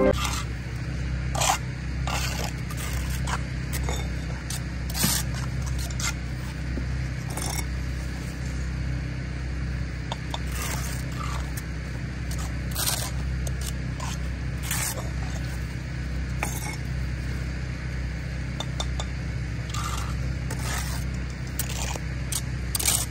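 Bricklaying by hand: a steel trowel scraping and tapping mortar as red engineering bricks are bedded, giving irregular short scrapes and clinks every second or two. A steady low rumble runs underneath.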